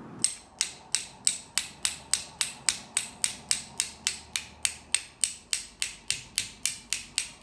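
A 1947 Snap-on GM-70M quarter-inch ratchet clicking steadily, about three times a second, as it is worked with a deep-well socket on its drive: the pawl ratcheting over the gear, the mechanism turning in this direction.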